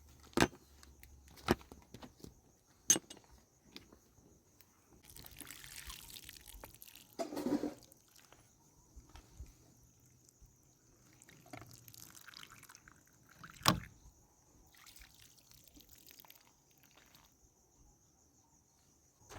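Water pouring and splashing in short spells, with a few sharp knocks, the loudest about fourteen seconds in. A steady high cricket trill runs underneath.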